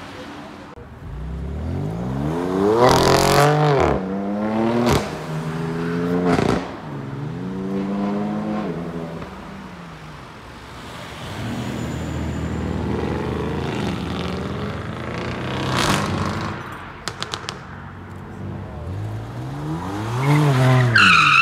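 Several tuned performance cars, among them Audi RS wagons and a BMW M2, accelerating hard past one after another, engines revving up through the gears. Sharp exhaust bangs come several times, with a quick burst of crackles about two thirds of the way through.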